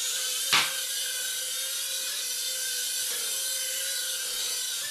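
Mini quadcopter's tiny electric motors and propellers running with a steady high whine, with one sharp knock about half a second in.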